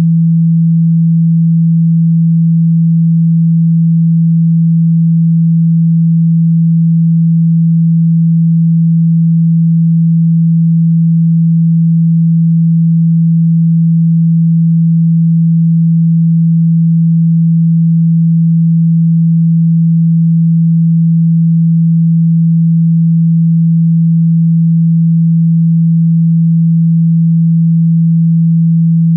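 Pure 165 Hz sine-wave test tone: one steady low hum held at an unchanging pitch and level. This is a tone played at full volume to shake water and dust out of a phone's speaker.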